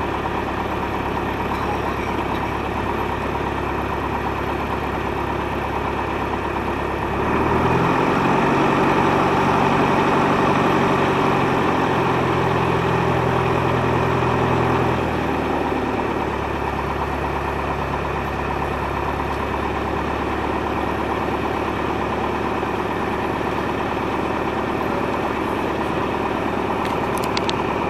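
Single-engine light aircraft's piston engine and propeller idling as the plane taxis, heard from inside the cockpit. About seven seconds in, the engine is throttled up and runs louder for some eight seconds, then settles back to a steady idle.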